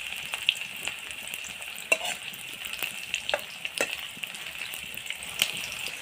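Sliced onions sizzling in hot oil in a black iron wok, with a steady hiss. A metal spoon clicks and scrapes against the pan several times as the onions are stirred.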